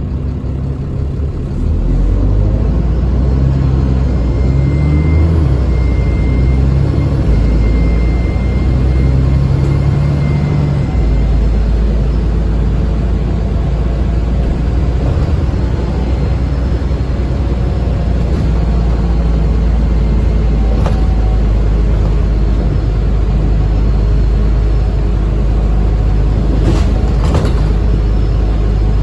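Alexander Dennis Enviro400 double-decker bus on a Dennis Trident chassis, its diesel engine pulling away with a thin high turbo whine over it. For the first ten seconds or so the low engine note rises and falls in pitch through the gears, then it runs steadily under way. Two sharp knocks come near the end.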